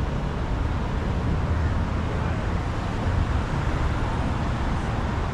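Steady city street traffic noise, an even wash of passing road vehicles heavy in the low end.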